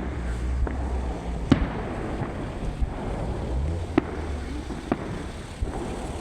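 Fireworks bursting: a string of sharp bangs of varying strength, the loudest about one and a half seconds in and again at four seconds, over a steady low rumble.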